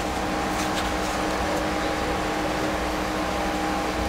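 Steady mechanical hum with a couple of constant tones, under faint rustling of paper sheets as a stack of paintings is handled.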